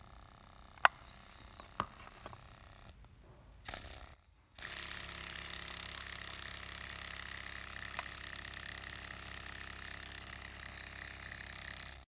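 Glass-syringe free-piston Stirling engine running steadily at about 2800 RPM (33 Hz), a fast mechanical running sound that starts suddenly about four and a half seconds in. Before that it is faint, with two sharp clicks.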